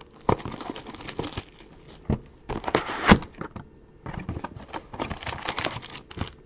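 Trading card packs and cards being handled: irregular crinkling and crackling of wrappers and card stock, with a sharper crack about three seconds in.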